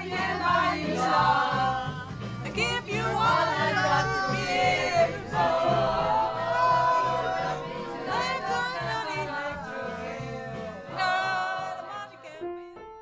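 Mixed pop choir of men's and women's voices singing together. The singing dies away near the end.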